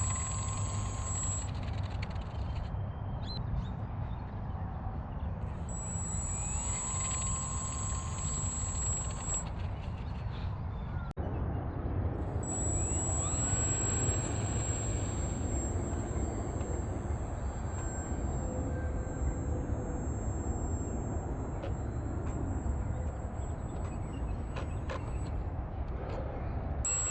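Aerobatic RC airplane's motor and propeller run up in several spells, each starting with a rising whine, holding a steady high whine, then cutting back, over a steady low rumble.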